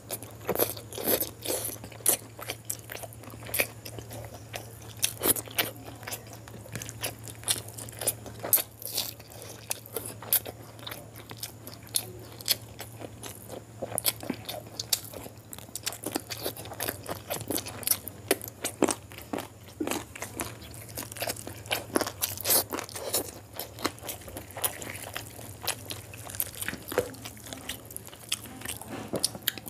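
Close-miked eating: chewing with many sharp wet clicks and smacks while eating chicken curry and rice by hand, with fingers squishing rice through the gravy. A steady low hum runs underneath.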